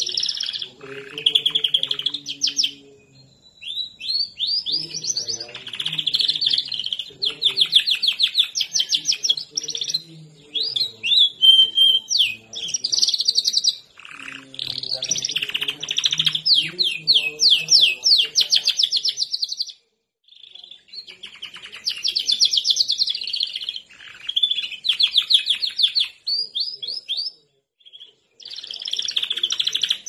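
Domestic canary singing long phrases of fast trills and rapid repeated notes, with short pauses between phrases.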